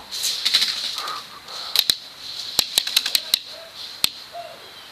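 Airsoft guns firing: a rapid run of sharp clicks in the first second, then scattered single sharp snaps.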